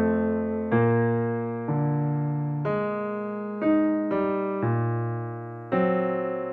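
Background music: slow piano chords, a new chord struck about once a second and fading away before the next.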